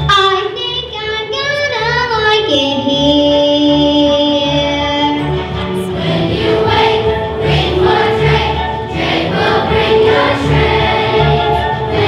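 Children singing a musical number with instrumental accompaniment. A single voice slides in pitch and holds one long note, then a group of children's voices comes in about six seconds in over a steady beat.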